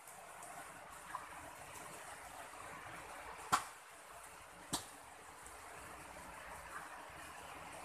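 Light rain falling steadily, with two sharp clicks about three and a half and four and three-quarter seconds in.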